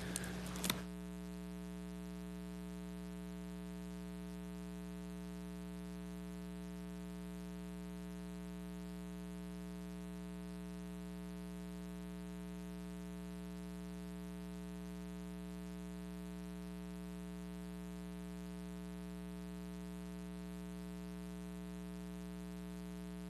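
A short click just under a second in, then a steady electrical hum of several held tones on the meeting-room audio feed, with no speech once the microphones are switched off.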